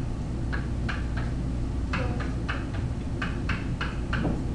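Stylus strokes on a whiteboard as short marks are written: about a dozen brief, irregularly spaced scratches over a steady low room hum.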